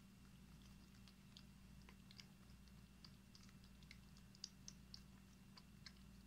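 Faint, irregular wet clicks of a cat licking paste from a squeeze-tube treat, two or three licks a second, over a low steady hum.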